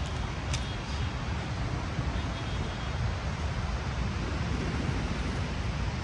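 Steady outdoor street ambience dominated by road traffic noise, with one short click about half a second in.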